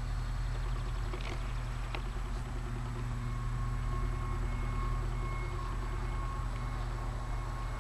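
Radio-controlled P-51D Mustang model airplane flying at a distance, its motor a thin steady drone that becomes audible about three seconds in, under a steady low rumble.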